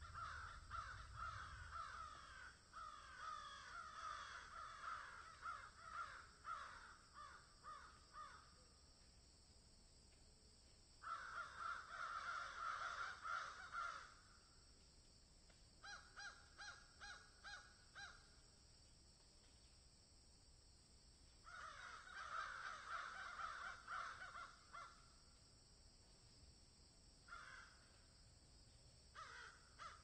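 Several crows cawing in a field, in bouts of overlapping caws separated by pauses of a few seconds. Near the middle, one bout is a quick run of short, evenly spaced caws.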